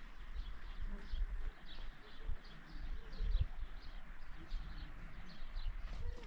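Small birds chirping in the open: short, falling high notes repeated two or three times a second, over a low, uneven rumble.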